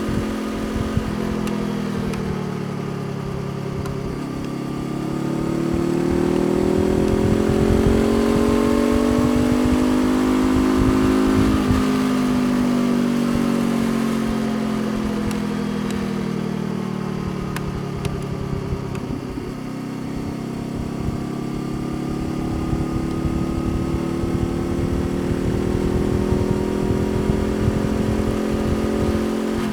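Honda CBR500R's parallel-twin engine pulling while riding, its note climbing slowly for several seconds, breaking off abruptly about twelve seconds in and sinking, then breaking again around twenty seconds in and climbing once more.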